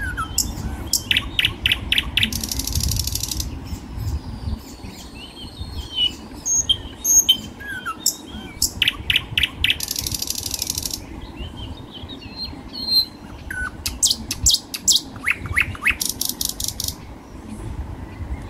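Songbirds chirping, with bursts of rapid high trills every few seconds.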